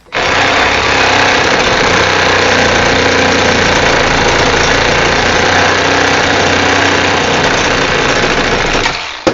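Milwaukee M12 Hackzall, a brushed 12-volt one-handed reciprocating saw, sawing through 3/4-inch steel pipe: the motor running steadily under load with the blade rasping on the metal. It starts suddenly and cuts off just before the end.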